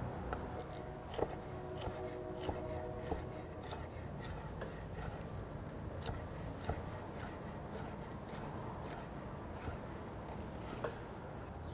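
Chef's knife slicing a poblano pepper into strips on a wooden cutting board: a quiet, irregular run of knife taps and crunches against the board.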